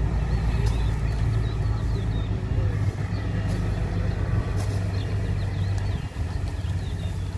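A steady low engine hum, like an idling diesel, running without change. Small birds chirp faintly now and then above it.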